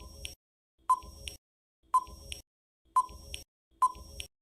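Quiz countdown timer sound effect: five short electronic ticks, about one a second, each a brief beep with a short rattle after it.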